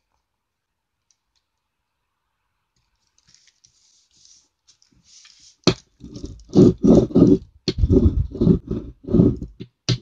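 Rubber brayer rolled back and forth over paper glued to a manila folder to press it flat: after a few nearly silent seconds and a soft rustle, a sharp click, then a run of rolling strokes about two a second.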